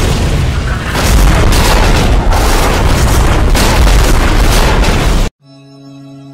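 Heavy explosions, one deep boom running into the next without a break, cut off suddenly about five seconds in. A soft, held musical chord follows.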